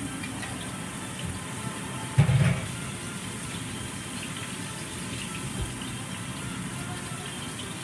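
Flank steak sizzling steadily in a hot oiled pan as it starts to sear, with one brief thump about two seconds in.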